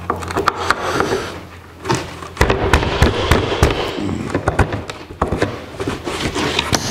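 Steel bolts and a plywood board knocking and clinking on a wooden workbench as bolts are pushed through drilled holes in the plywood: a quick, irregular run of taps and knocks. A low steady hum stops about two seconds in.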